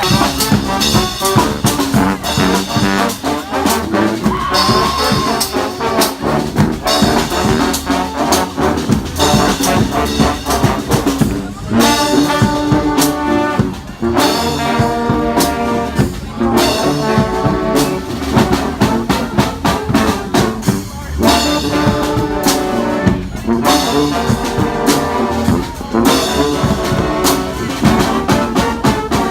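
Street brass band playing a lively tune, trumpets and trombones over a steady beat of drums.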